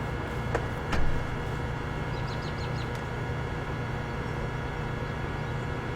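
Two sharp snaps under half a second apart, the second louder: single shots from a JG G36C airsoft electric rifle fired without a suppressor. A bird then gives a quick run of about five high chirps, over a steady low hum.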